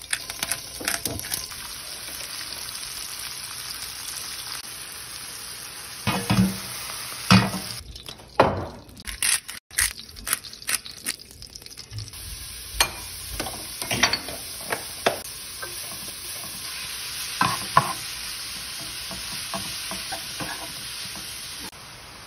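Food frying in oil in a skillet: zucchini noodles and mushrooms sizzling with a steady hiss. Tongs click and knock against the pan at irregular moments as the noodles are tossed.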